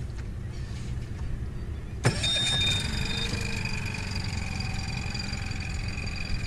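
Mercury 15 hp Pro Kicker four-stroke outboard starting in neutral. It catches about two seconds in and settles into a steady idle, with a brief high steady tone just after it catches.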